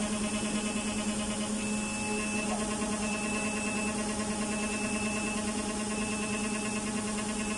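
CNC milling spindle running steadily with a hum while a small end mill engraves a steel roller for a mask-making machine. A faint high tone comes and goes about every second and a half.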